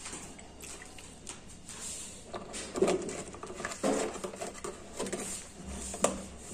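Orange juice pouring from a carton into a glass tumbler, followed by a few short knocks as the juice carton is handled on the counter.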